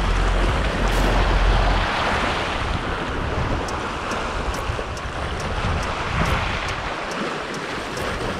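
Small waves washing and splashing over a rocky shore ledge, with wind buffeting the microphone as a heavy low rumble for the first two seconds. Faint, quick ticks come in over the second half.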